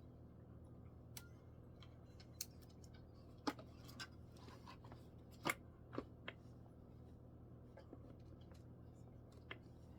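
Faint, scattered light clicks and knocks of plastic string-trimmer parts being handled and fitted together, over a low steady hum.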